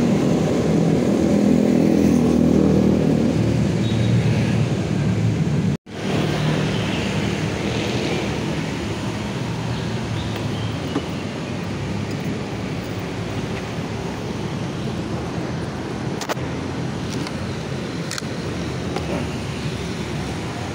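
Motorcycle engine running at low speed, a steady low hum, louder in the first few seconds. The sound cuts out completely for a split second about six seconds in.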